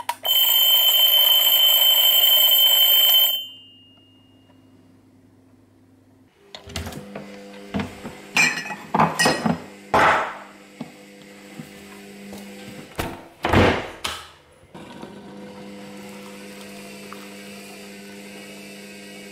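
Alarm clock ringing loudly with a steady high electronic tone for about three seconds, then cut off. After a pause come kitchen clatter and knocks as a cupboard door is opened and mugs are handled. Near the end a kettle is poured into a mug.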